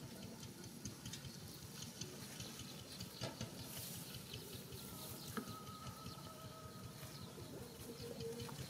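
Faint outdoor field ambience: a low hiss with soft scattered ticks and rustles, and a thin steady tone, like a distant bird or insect, held for about two seconds midway.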